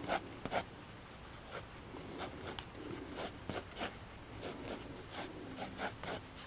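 Quick, short strokes of a drawing tool scratching on paper, irregular and several a second, as a cartoon is sketched at speed.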